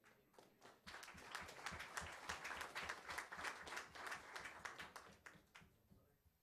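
Audience applauding: many people clapping together, building up about a second in and thinning out near the end.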